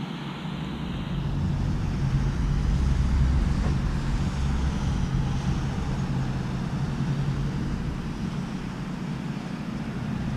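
Car fitted with an AWE Track exhaust driving, giving a steady low exhaust drone over road noise that grows louder about a second in as the engine pulls.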